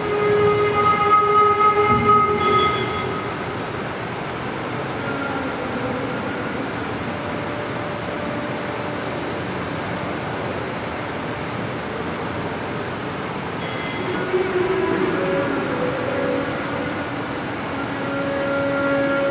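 Slow ambient music of long held tones that change every few seconds, over a steady hiss.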